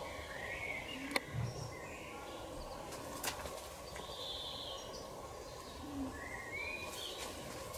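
Birds calling in a garden: short chirps now and then over a faint steady background, with a couple of soft clicks.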